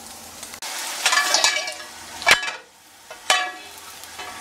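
Hot grease sizzling in a stainless steel skillet after browning ham, with two sharp metallic knocks, the louder a little past two seconds in and another about a second later.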